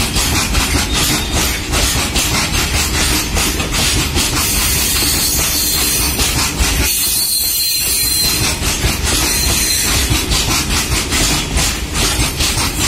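Long rake of BOXN open freight wagons rolling past close by: steel wheels clatter over the rail joints in a repeating pattern over a continuous rumble.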